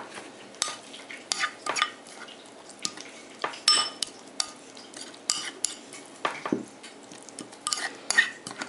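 Metal spoon stirring thick sour cream sauce in a ceramic bowl: irregular scrapes and clinks of the spoon against the bowl, some with a brief high ring.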